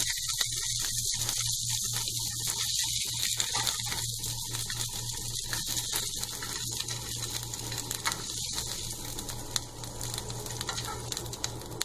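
Paneer cubes sizzling in shallow hot oil in a nonstick pan on high heat, with light scrapes and taps of a spatula as the cubes are lifted out. The sizzle eases slightly toward the end, over a steady low hum.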